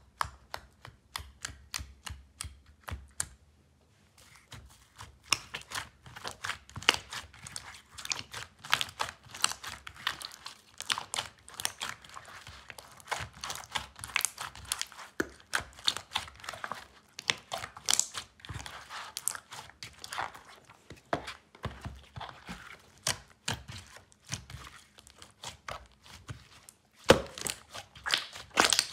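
Hands squeezing and pressing soft green slime, making rapid, irregular sticky clicks and wet pops, with a short lull about four seconds in and the sharpest snaps near the end.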